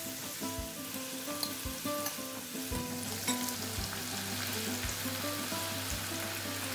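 Hot oil sizzling as potato cubes deep-fry in a pan, then sliced onions going into the oil, with the sizzle brighter from about three seconds in. Background music with a steady beat plays underneath.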